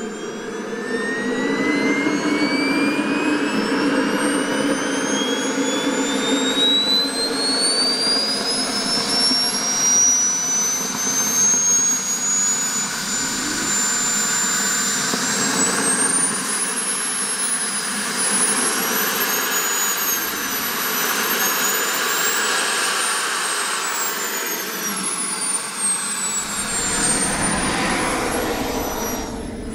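RC jet's gas turbine whining, its pitch climbing steadily for about fifteen seconds as it spools up, then swinging up and down with throttle changes. A deeper rumble joins near the end.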